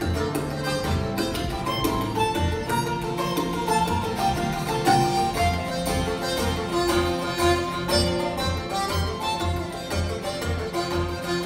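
Live Irish traditional band playing a dance tune: fiddle and banjo over strummed guitar, with a steady low drum beat.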